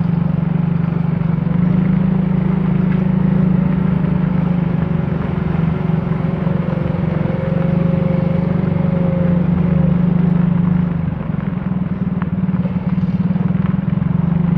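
A vehicle engine running steadily while driving along a rough dirt track. It eases off slightly about eleven seconds in, then picks up again.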